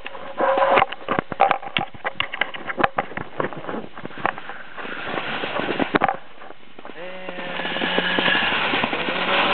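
Handling noise from a handheld camera: a quick run of clicks, knocks and rubbing against clothing as it is pulled out and moved around. About seven seconds in, a steady hiss of wind and snow rises, with a low hum under it.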